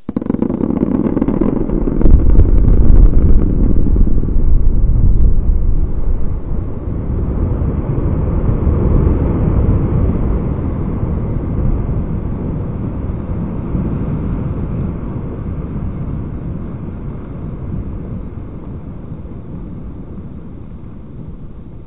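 Quarry blast on a rock face: the charges go off with a sudden loud bang, followed by a deep rumble that swells over the first few seconds and then slowly fades.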